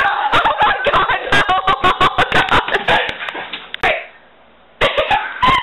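Young women laughing and making wordless vocal noises over a rapid flurry of knocks and thumps. The sound drops away for nearly a second near the end, then comes back.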